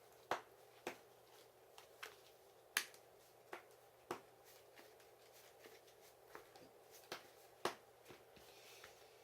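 Irregular sharp clicks and taps of Yu-Gi-Oh trading cards being handled and put down on a table, about a dozen in all, with a few much louder snaps among them.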